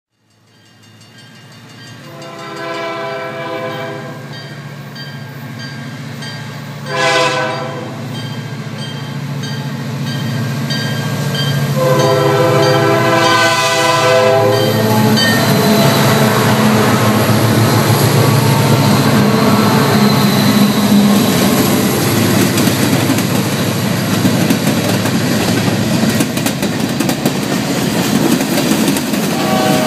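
Canadian Pacific freight train, led by EMD SD40-2 diesel 5690, passing a grade crossing. Its air horn sounds a long blast, a short one and a final long one as it grows louder. Then the locomotives' diesel engines go by and the freight cars roll past with a steady rumble and the clickety-clack of wheels.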